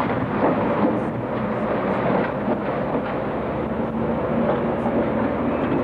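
Street traffic: a steady rumble of passing cars and engines, with a low hum running through it.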